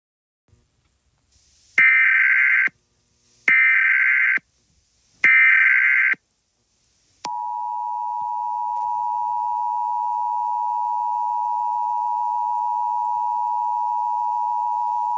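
Emergency Alert System tones: three short buzzy bursts of SAME digital header data, each just under a second long, then the steady two-tone EAS attention signal, which starts about seven seconds in and holds.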